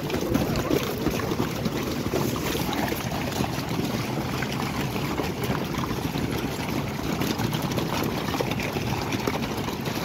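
Hooves of a large pack of horses galloping over snowy gravel, a dense, steady clatter of many hoofbeats heard from among the running horses.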